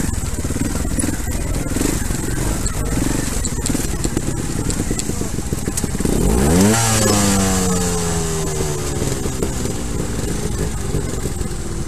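Trials motorcycle engine running with a fast, rough firing beat. About six and a half seconds in, an engine revs sharply up and then winds back down in pitch over about three seconds.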